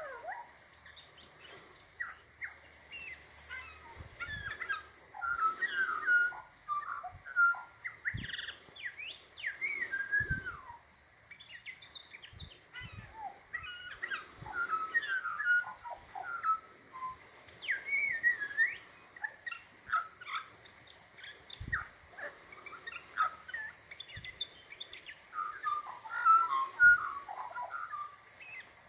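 Australian magpie singing a long, varied warbling song of quick whistled glides and chirps, phrase after phrase with short pauses.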